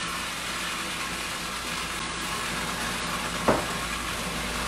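Food processor running steadily, chopping basil and garlic while olive oil is poured in through the feed tube. A sharp knock comes about three and a half seconds in.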